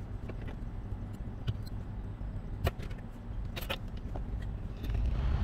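Small sharp clicks and scrapes of a metal blade against a BGA stencil and chip, several in a cluster past the middle, over a steady low hum; a louder hiss rises near the end.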